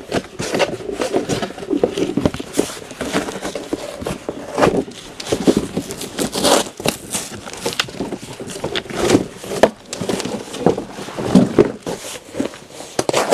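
Fire in a metal burn drum crackling and popping irregularly as it burns cardboard and paper rubbish, with crinkling.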